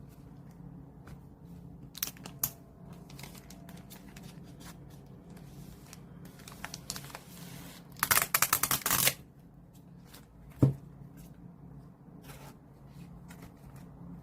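Paper and plastic album packaging and cards being handled: scattered clicks and rustling, with a loud, rapid run of strokes for about a second just past the middle, like tearing or riffling through cards.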